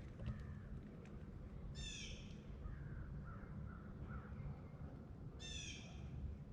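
A crow cawing twice, a few seconds apart, with softer short calls in between, over a steady low rumble.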